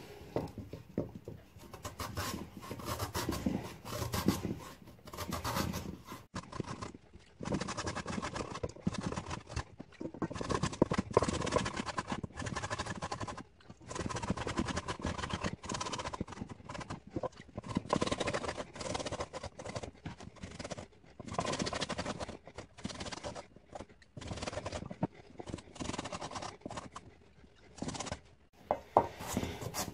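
Raw potato pushed in repeated strokes across a wooden julienne grater for Korean-style carrot, each stroke a short scrape as the shreds fall into a steel bowl. The strokes come about once a second, with a few brief pauses.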